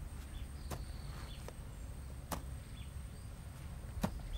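Quiet background ambience: a low steady hum, with three sharp clicks about a second and a half apart and a few faint, short high chirps.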